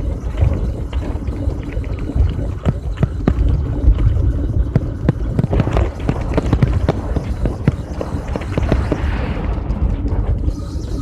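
Riding noise from a moving bicycle: a steady low rumble with frequent knocks and rattles from bumps in the road.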